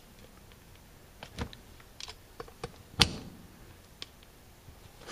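A small metal pick tapping and scraping on the brass throttle plates of an Autolite 4100 carburetor, marking them before removal. It makes scattered light clicks, with one sharper click about three seconds in.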